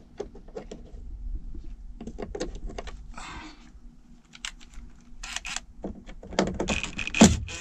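Handling noise of a cordless drill/driver and screws against plastic dash trim: a string of irregular clicks, rattles and short scrapes, with a louder knock near the end.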